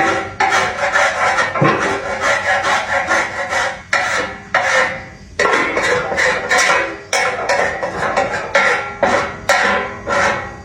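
Rapid, repeated hand scraping strokes on metal, typical of rust and old paint being worked off a part during restoration. The strokes come several a second, with a brief pause a little under halfway through.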